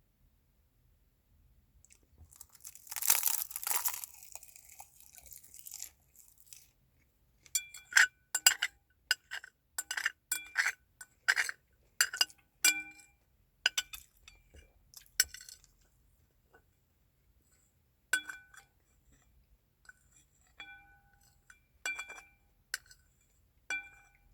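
Tableware at a meal: first a crackly, crinkling burst lasting a few seconds, then a long run of light taps of eating utensils against dishes, each tap ringing briefly.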